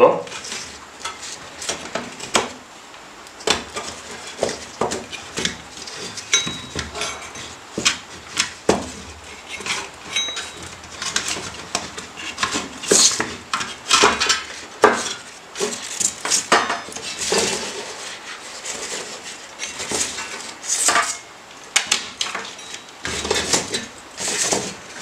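Irregular metallic clinks, knocks and scrapes as a PC power supply's circuit board, with its aluminium heatsinks, is worked loose and lifted out of its sheet-steel case.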